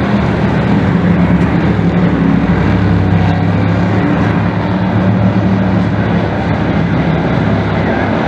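Engines of a field of dirt-track race trucks running hard around the oval, a loud, continuous drone whose pitch shifts as the trucks pass.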